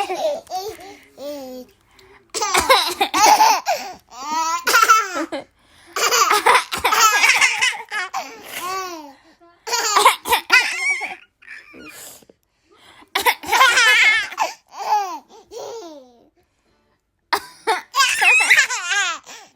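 A baby laughing in repeated bouts of a few seconds each, with short pauses between, about six bouts in all.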